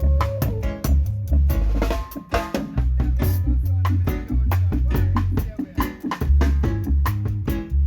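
Live band playing during a sound check: drum kit beating steadily under heavy bass guitar notes, with guitar lines on top.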